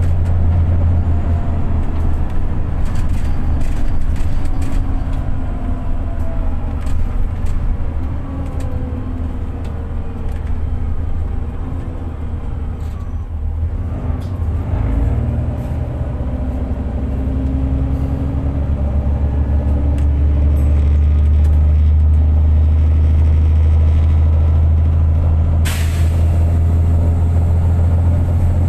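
Inside a VDL DB300 double-decker bus: the engine drones low with a whirring whine that glides down in pitch, then grows louder about halfway through as it labours up a hill in limp mode, making little power. Near the end a sudden hiss of air starts and keeps on.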